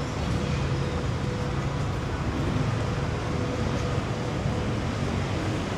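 Steady street traffic noise, with vehicle engines running close by as a constant low rumble.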